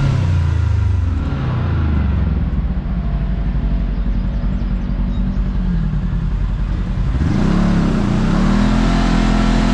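Kawasaki KRX side-by-side's parallel-twin engine running on a trail. The engine note falls in the first second, holds low and steady, then rises and dips again about seven seconds in before settling at a higher pitch.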